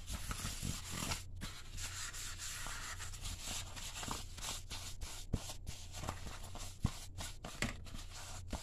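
A paper napkin rubbing and wiping around the inside of a fluted gelatin mold to grease it so the gelatin will release, a continuous scratchy rubbing with a couple of light knocks about halfway through.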